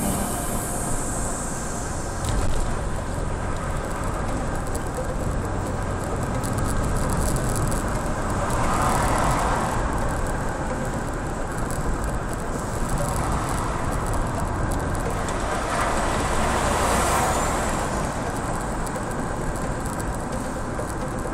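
Steady road noise heard inside a moving car's cabin: engine and tyre noise, swelling twice, about nine and seventeen seconds in.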